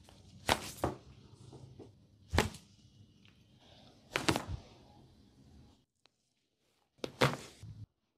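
Sharp cracks and smacks from a barber's head, neck and back massage, about six in all, over a low room hum. The loud crack about four seconds in comes as the head is twisted by the chin: a neck crack. The sound cuts out abruptly twice.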